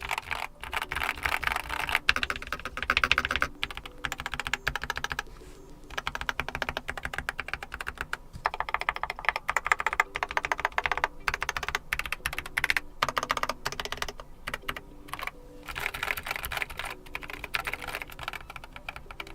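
Fast continuous typing on a Keychron K4 HE keyboard with magnetic Hall-effect linear switches, resting on a desk mat: dense runs of keystroke clacks with a couple of brief lulls.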